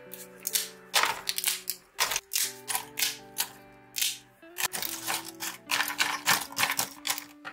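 Small plastic-and-foil contact-lens blister packs clicking and crinkling as they are handled and dropped into a plastic storage box, many quick irregular clicks over soft background music.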